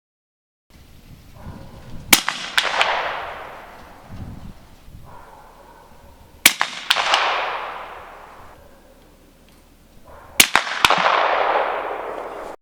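Three shots from a Gemtech-suppressed 300 AAC Blackout rifle, about four seconds apart. Each shot is followed by one or two fainter sharp cracks and a fading echo that dies away over about two seconds.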